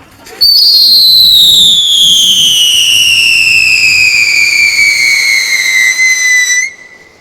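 Winda Spartan Screamer firework fountain whistling: one long, loud scream that starts suddenly, slides slowly down in pitch over about six seconds, then cuts off near the end.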